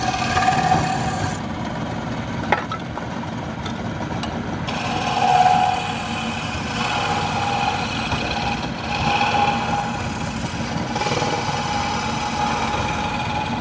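Wood lathe running with a chisel cutting into a spinning spindle of pale wood: a steady machine hum under the hiss of the cut. The higher hiss drops away for about three seconds a second and a half in, then comes back.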